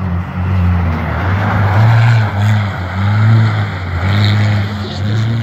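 Car engine running hard, its revs rising and falling several times as it accelerates and lifts off while towing a skier on a snow and ice track.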